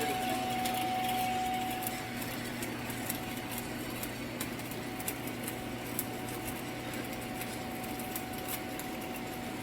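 Steady hum made of a few constant tones over a noisy haze, with a faint, sparse crackle of small clicks; it drops a little in level about two seconds in.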